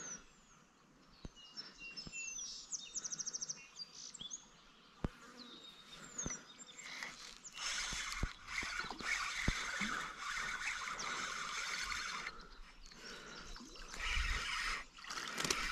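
Birds chirping, then a spinning reel being cranked steadily for about five seconds as a small goldeye on a float rig is reeled in, stopping sharply a little after the twelve-second mark, with a shorter burst of cranking near the end.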